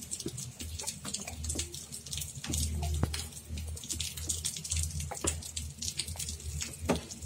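Baby sucking and swallowing from a feeding bottle: irregular small wet clicks and gulps.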